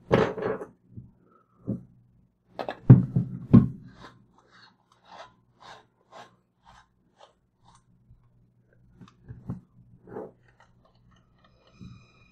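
Handling noise from a plastic-and-metal propane torch and hand tools on a wooden bench: a few sharp knocks and clicks, loudest about three seconds in, then a run of faint ticks about two a second, and a few soft knocks later on.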